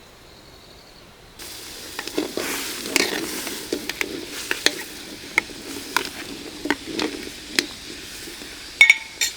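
Food frying in a hot pan: a sizzle starts suddenly about one and a half seconds in, with a utensil scraping and knocking against the pan about once a second, and two ringing metal clinks near the end.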